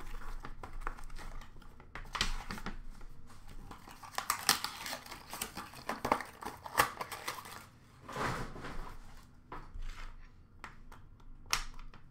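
Hands unboxing and handling trading cards and their packaging: irregular rustling and crinkling with scattered sharp clicks and taps.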